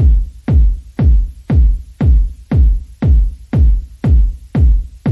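Background electronic music with a heavy bass kick drum beating about twice a second.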